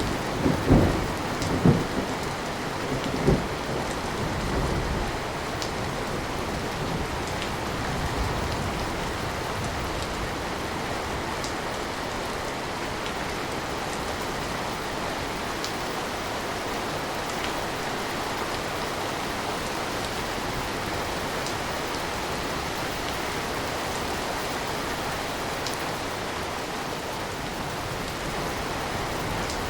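Steady rain with scattered individual drop ticks. A few short low rumbles stand out in the first four seconds.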